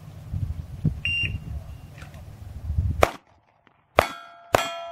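A shot timer beeps once. About two seconds later the shooter starts firing a pistol: three shots, the last two in quick succession near the end. After the later shots the steel plates ring as they are hit.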